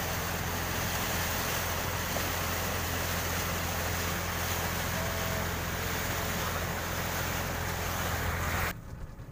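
Speedboat's Yamaha 40 hp outboard motor running steadily under way, with wind on the microphone and water rushing past the hull. The sound cuts off abruptly near the end.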